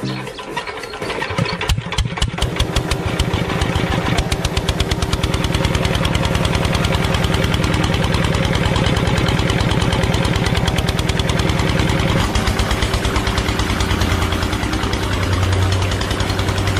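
Single-cylinder diesel engine starting and settling into a steady, fast chugging beat. The chugging gets quicker over the first couple of seconds, then holds even, and its low tone drops somewhat about twelve seconds in.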